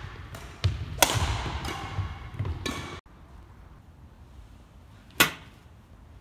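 Badminton racket hits on a shuttlecock, several sharp strikes echoing in a sports hall. This cuts off suddenly, and about five seconds in there is a single sharp crack of a golf club striking a ball on a driving-range mat.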